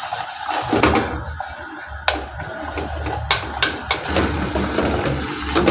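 Utensil clinking and knocking against a cooking pot as the sukuma wiki and beans are stirred, a few sharp clinks over a steady low hum.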